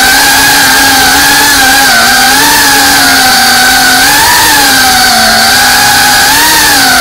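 FPV quadcopter's electric motors and propellers whining close up. The pitch wavers up and down a few times as the throttle changes.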